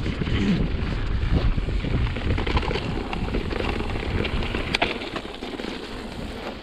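Wind buffeting the microphone over a mountain bike rattling along a rough dirt trail at speed, with a sharp clack nearly five seconds in.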